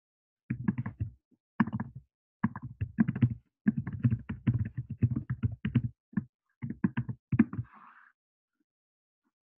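A rapid, irregular series of taps and knocks in clusters, stopping about two seconds before the end, followed by a brief soft hiss.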